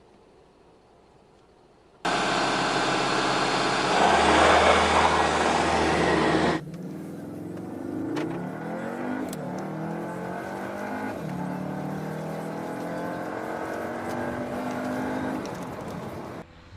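Cupra Formentor's 2.0-litre turbocharged four-cylinder engine. A loud, steady engine note cuts in suddenly about two seconds in and grows louder about two seconds later, then stops abruptly. The engine note then rises and falls in pitch several times as it revs and changes gear, until it cuts off near the end.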